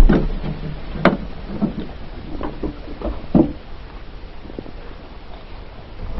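A few knocks and thumps, the loudest at the start and about a second in, over a low steady rumble.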